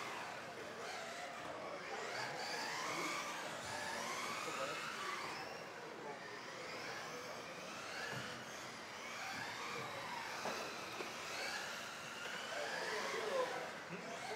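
Several electric RC off-road cars racing in the modified class, their motors whining and overlapping, each rising and falling in pitch as the cars accelerate and brake around the track.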